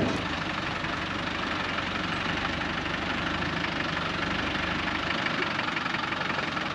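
Land Rover Defender's engine running steadily, an even sound with no clear rise or fall.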